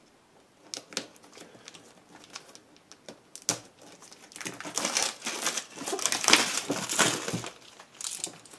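Clear plastic shrink-wrap being torn and pulled off a cardboard product box, crinkling. A few faint taps at first, then dense crinkling from about three and a half seconds in.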